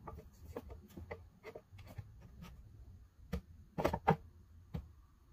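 Light taps and knocks of walnut pieces being handled and pressed into place as a table frame is fitted together by hand, with two louder knocks close together around four seconds in.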